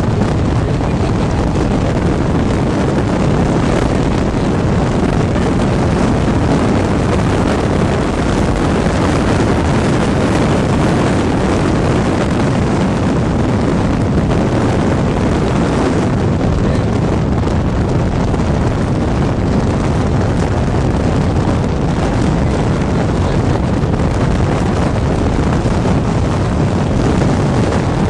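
Steady, loud wind rush and rumble, heaviest in the low end, unbroken throughout.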